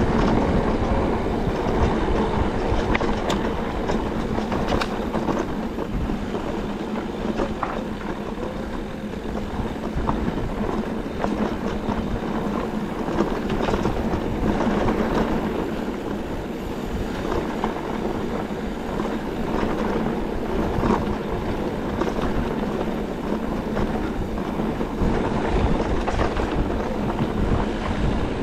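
Enduro e-bike riding over rough trail: a steady rolling rattle of tyres and bike, with scattered clicks and knocks.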